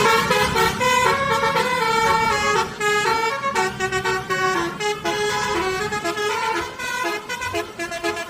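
Basuri musical air horn on a bus (the 'telolet' horn) playing a melody: a run of short and held horn notes stepping up and down in pitch.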